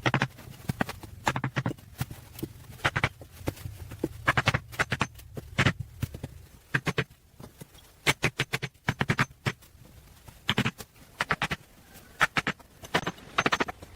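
Irregular knocks and short scraping strokes, one after another with brief gaps, sometimes in quick runs, like hand work on wood, earth or clay.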